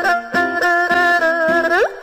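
Background music: a quick string of pitched notes, with one note sliding up in pitch near the end.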